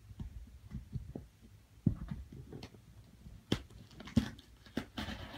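Hands working open a small package box: scattered clicks, knocks and thumps of handling, with a brief rustle near the end.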